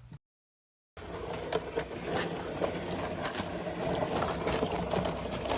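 A vehicle engine idling steadily, with a few light clicks over it.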